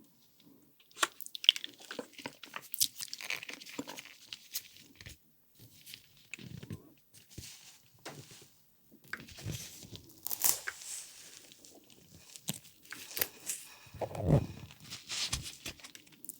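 Close-miked eating of chocolate desserts: crisp, crunchy bites and chewing, with short pauses between mouthfuls.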